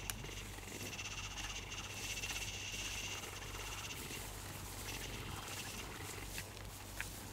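A steady, high-pitched chorus of rapidly pulsing animal calls over a low steady hum, with a couple of faint clicks.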